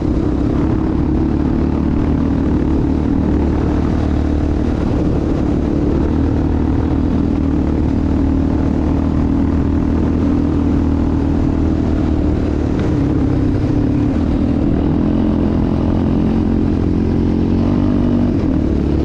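Yamaha Raptor 700 ATV's single-cylinder four-stroke engine running under way at a fairly steady speed, its pitch shifting slightly near the end.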